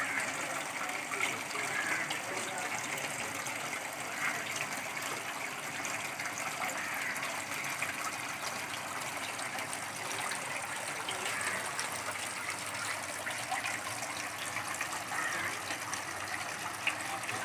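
Water from a small homemade tabletop fountain falling steadily from its upper tier and splashing into the basin below.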